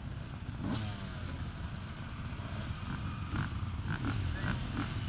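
Several motocross bike engines running and revving together, a steady low rumble, with one rev falling away about a second in.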